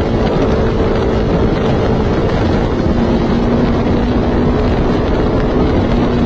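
Motorcycle engine running steadily at high revs in sixth gear at about 100 km/h on a top-speed run, its drone holding one even pitch, with wind rushing over the microphone.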